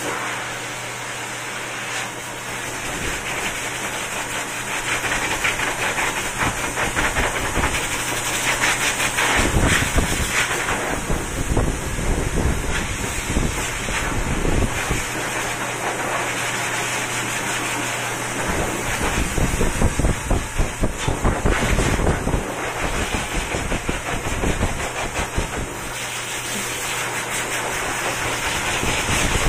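Pet grooming dryer blowing a steady rush of air from its hose nozzle onto a wet cat's fur, with a low hum underneath. The rush swells and eases as the nozzle moves over the coat.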